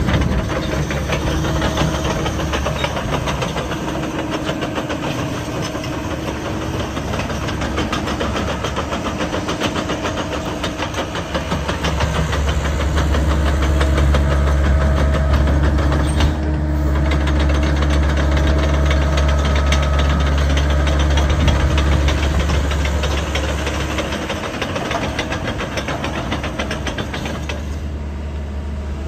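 Diesel engine of a Hyundai HX60 PRO excavator running steadily with the machine standing still, growing louder for about ten seconds in the middle.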